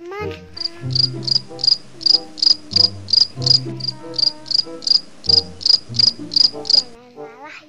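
Cricket-chirp sound effect, an even run of short high chirps about three a second that stops about seven seconds in, over background music with a bass line.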